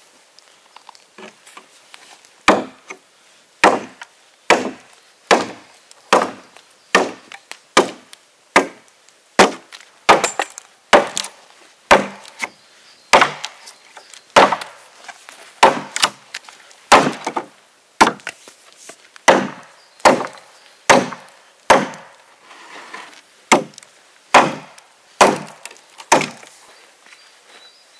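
Axe chopping along the edge of a wooden board to trim it: a steady series of sharp wooden strikes, a little more than one a second.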